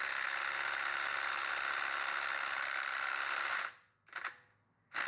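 Ryobi PSBID01 brushless compact impact driver hammering on a lug nut torqued to 80 ft-lb, through a quarter-inch hex to half-inch adapter and a 19 mm impact socket. It runs steadily for about three and a half seconds, stops, gives a short blip, then starts again near the end, straining to break the nut free.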